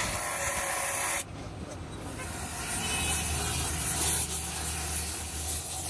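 A grinder's thin abrasive disc grinding cast iron, cut off abruptly about a second in. Then a gas torch flame hisses steadily over a low hum.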